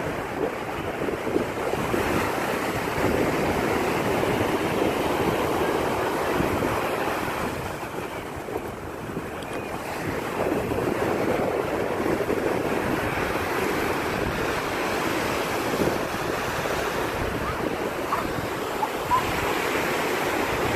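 Ocean surf breaking and washing up the beach, with wind buffeting the phone's microphone.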